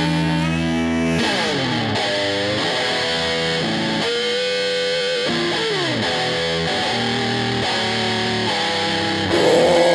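Soundtrack music: a distorted electric guitar playing a riff in which many notes slide down in pitch, getting louder near the end.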